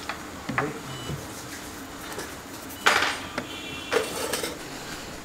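Light metallic clicks and a clatter as a thin steel BGA reballing stencil is lifted off a chip and set down on the workbench, the loudest clatter about three seconds in.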